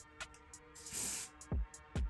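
Background music with a programmed beat: deep kick drums, quick ticking hi-hats and a snare hit about a second in.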